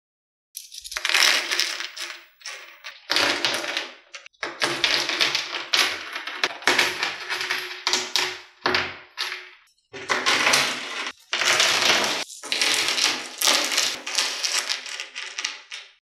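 Small pebbles clattering and scraping against one another as they are set down, in a series of bursts a second or so long with short gaps between.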